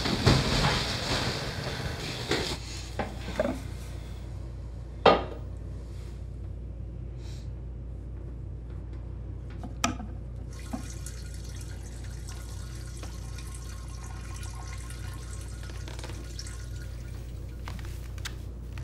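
Water running in a small bathroom, fading out over the first few seconds. After that a low steady hum continues, with a few scattered knocks, the loudest about five seconds in.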